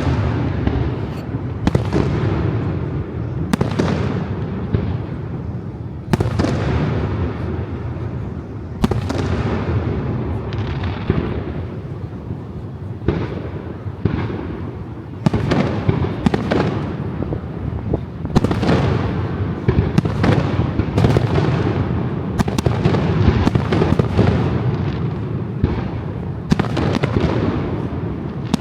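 Aerial fireworks display: a rapid string of shell bursts and booms, several every few seconds, each followed by echoing rumble, with the bursts coming thicker from about 15 seconds in.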